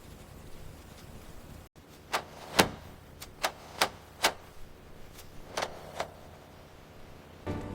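A run of about eight sharp clicks or taps, irregularly spaced over about four seconds, the second one the loudest, following a brief dropout about two seconds in.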